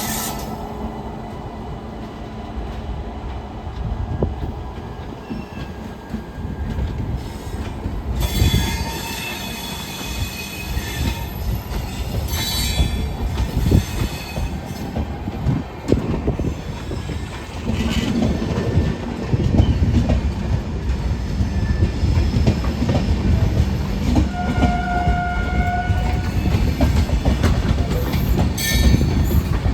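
Indian Railways train running past on the track: a continuous heavy rumble of wheels on rail with some clickety-clack. High-pitched squeals come in about a third of the way through, and a short horn note sounds near the end.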